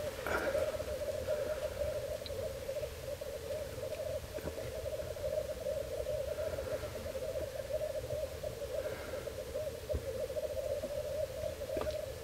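Black grouse cocks lekking: a continuous chorus of bubbling, cooing song, with a few fainter, higher calls over it now and then.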